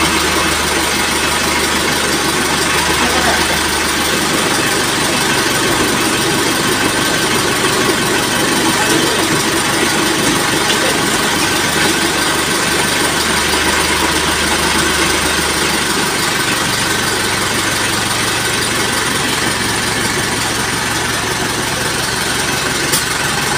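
Engine of a truck-mounted crane running steadily while the crane holds a lifted light truck, with a low hum that swells and fades a few times.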